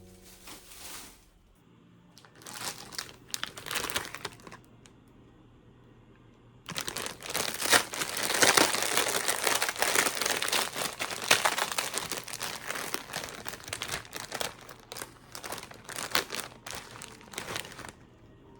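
Packaging crinkling as it is handled, in short rustles at first, then a long stretch of continuous crinkling.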